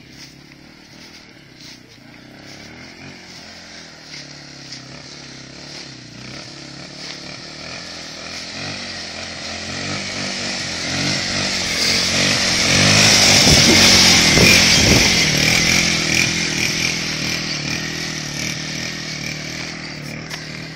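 Engine of a 90cc Mongoose ATV revving as the quad is ridden by in a wheelie: it grows steadily louder as it approaches, is loudest as it passes close about 13 to 15 seconds in, then fades as it moves away.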